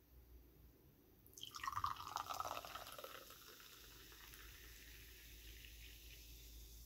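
Carbonated sparkling water poured from an aluminium can into a small glass tumbler: a splashing pour starts about a second and a half in, then settles into a steady fizzing hiss of bubbles.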